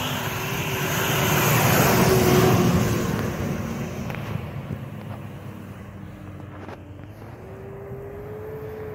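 Toyota Land Cruiser's engine working hard as the 4x4 churns through deep snow, its tyres spinning and throwing snow. The noise is loudest in the first three seconds. Later the engine note rises slightly near the end.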